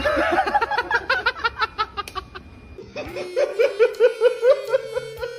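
Rapid laughter, a quick run of 'ha-ha' pulses, fading after about two seconds. About three seconds in, music comes in with a held note under short pulsing notes.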